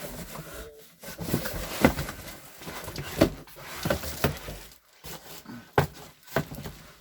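Large cardboard box being shifted and handled: scraping and rubbing with several sharp knocks against it.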